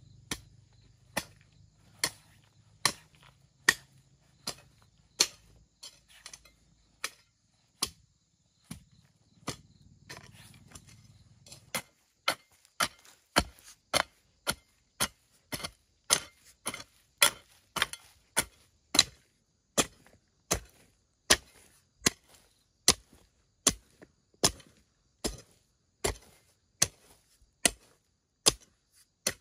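Steady chopping with a blade, evenly spaced strokes at about one a second.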